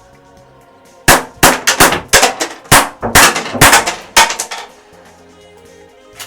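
Marushin Colt Government model gun firing caps: a rapid string of about a dozen loud, sharp cap shots with metallic clacks, lasting about three and a half seconds.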